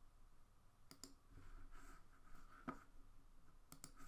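Near silence: a handful of faint clicks of a computer mouse, a pair about a second in, one more near the middle and another pair near the end, over faint room hiss.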